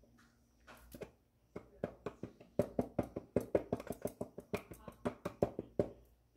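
Small hard taps and clicks as bearded dragon food pellets and their dish are handled. They come in a quick, irregular run, several a second, starting about a second and a half in and stopping just before the end.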